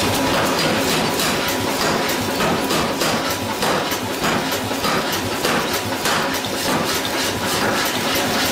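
Power hammer forging a red-hot steel hammer-head blank: a loud, steady machine clatter with rapid, irregular knocks, a few a second.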